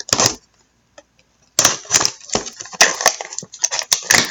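Trading card box packaging being torn open and handled by hand: a brief rustle, then from about a second and a half in a dense run of crinkling and crackling with sharp clicks.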